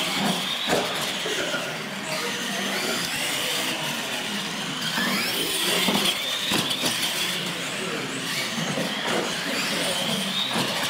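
Radio-controlled monster trucks racing, their electric motors whining and rising and falling in pitch with the throttle.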